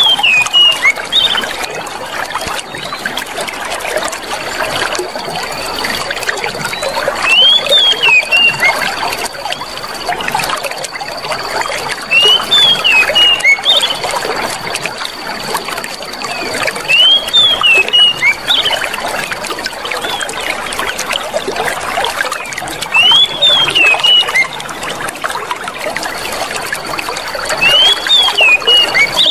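Clear water running and trickling steadily, surging louder about every five seconds. Each surge carries a short burst of high chirps.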